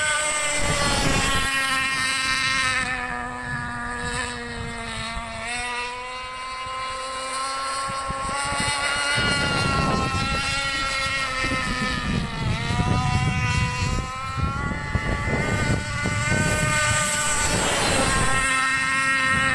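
Radio-controlled speedboat running at speed across a lake. Its motor makes a buzzing whine that slides up and down in pitch several times as the boat runs past and turns.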